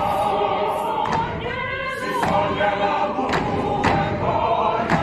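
A large South African choir of men and women singing together, with sharp hits roughly once a second cutting through the singing.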